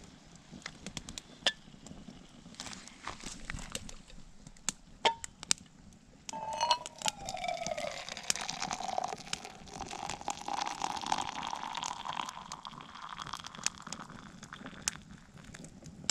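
Scattered sharp clicks, then about six seconds in water starts pouring from a camp kettle into a stainless steel cup, its tone climbing as the cup fills, until the pour tails off near the end.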